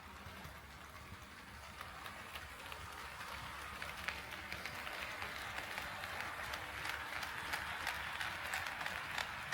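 HO scale model train rolling along the track toward the microphone, a steady rolling rumble that grows louder, with sharp clicks from the wheels passing over the rail joiners coming faster toward the end.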